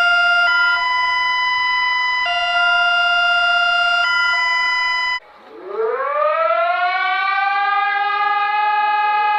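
Emergency alert alarm: a loud electronic chord of stacked steady tones that switches back and forth between two pitch sets about every two seconds. About five seconds in it gives way to a siren winding up, its pitch rising from low and levelling off into a steady wail.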